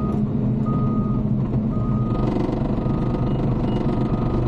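Bulldozer's diesel engine running steadily under load, with a reversing alarm beeping roughly once a second.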